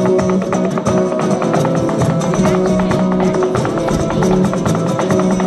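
Live flamenco: Spanish guitars strumming and picking while a dancer's shoes beat rapid footwork taps on a wooden dance board.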